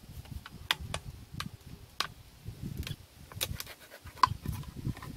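Plastic bottles being handled: scattered sharp clicks and crinkles as a cut bottle piece is fitted into the mouth of a plastic jug to make a funnel trap.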